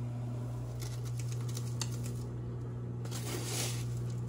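Microwave oven running with a steady low hum, with a few light clicks and, about three seconds in, a short scraping rustle of a metal measuring cup scooping panko breadcrumbs.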